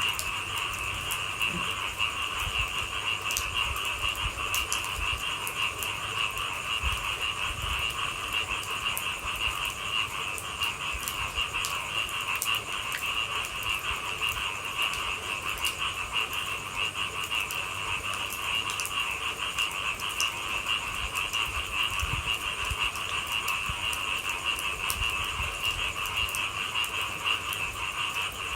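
Dense, steady chorus of frogs calling, with scattered sharp ticks of raindrops and occasional low thuds.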